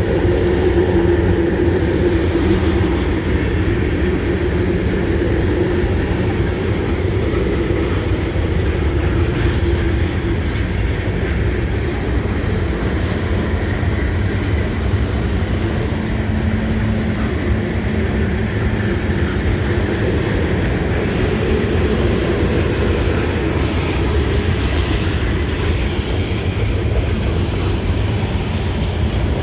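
A mixed freight train's cars rolling past, a steady rumble of steel wheels on the rails.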